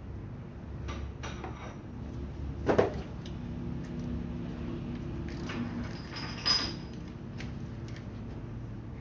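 Metal clinks and knocks of tools and parts being handled during washing-machine repair work, with two louder knocks about a third and two-thirds of the way in, over a steady low hum.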